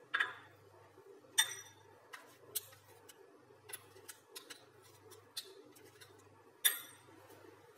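A spoon scraping ground peanuts out of a small blender grinder cup, with irregular sharp clicks and knocks of the spoon against the cup; two knocks, about a second in and near the end, are the loudest.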